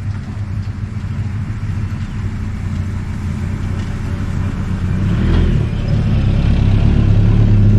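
Farm truck engine running with a steady low rumble, growing louder in the second half.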